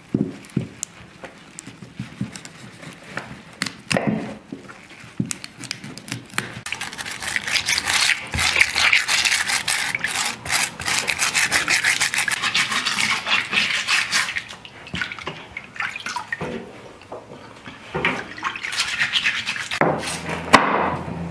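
Stiff bristle brush scrubbing turnips in a basin of water: rapid, rasping back-and-forth strokes for several seconds in the middle. Before and after come a few sharp knocks of a knife cutting turnip stems on a wooden board.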